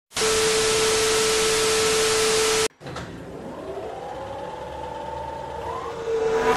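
Edited-in sound effects: a loud hiss of noise with one steady tone through it cuts off suddenly after about two and a half seconds. A fainter whine then rises slowly in pitch, siren-like, and jumps higher near the end.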